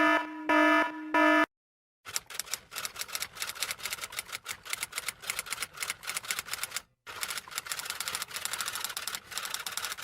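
Three short buzzer-like tones, then a typewriter sound effect: a fast run of key clacks lasting several seconds, with a brief break in the middle.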